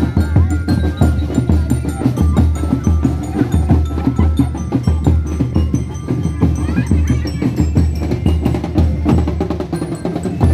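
Festival drum band playing: a dense, fast rhythm of drum strokes with a heavy low beat and a few high ringing notes over it.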